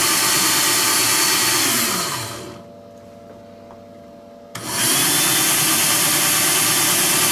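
Cordless drill's small brushed DC motor running on an 11-volt bench supply, its brushes freshly cleaned of carbon dust and drawing about 2 amps. About two seconds in the power is cut and it spins down with a falling whine. A couple of seconds later it is reconnected with a sharp click and runs straight back up to speed.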